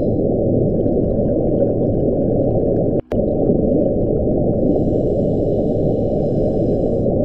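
The "Julia" sound, a 1999 NOAA underwater hydrophone recording of an unexplained ocean sound, which NOAA attributes to a large iceberg running aground. It plays as a dense, muffled low noise with nothing above the low range, broken by a brief dropout about three seconds in.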